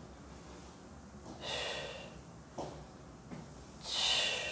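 A woman's forceful breaths out, one with each crunch: two exhalations, about a second and a half in and near the end, the second louder. Two faint knocks fall between them.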